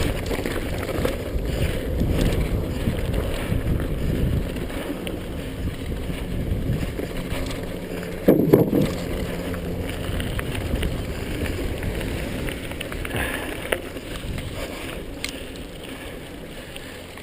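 Rushing wind on the microphone and the rough rumble of a downhill run on a trail, with a sharp knock about eight seconds in; the noise eases off toward the end as the ride slows.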